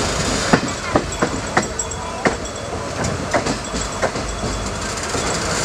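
Indian Railways train running on the rails, heard from aboard: a steady rumble with irregular sharp clacks of the wheels over rail joints.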